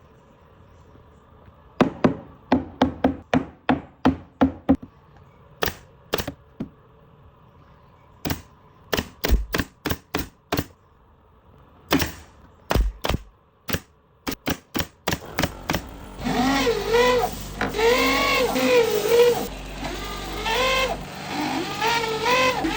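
Sharp knocks on wood while a wooden speaker box is being assembled: first a quick run of about four blows a second, then scattered single knocks. Near the end a voice with wavering pitch, like singing, comes in over a low hum.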